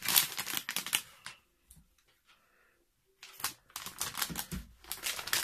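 Crinkling and rustling of a metallized anti-static bag with a sound card inside it, in two spells with a pause of nearly two seconds between them.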